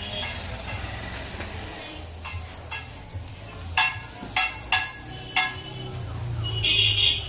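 Paper crinkling as an egg roll is wrapped in a sheet of white paper: four sharp crackles between about four and five and a half seconds in, and a short rustle near the end, over a steady low hum.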